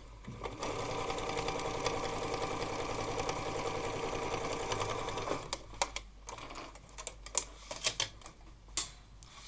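Domestic electric sewing machine running steadily for about five seconds, needle stitching a seam through layered cotton fabric, then stopping. A scattering of sharp clicks follows as the fabric is handled at the machine.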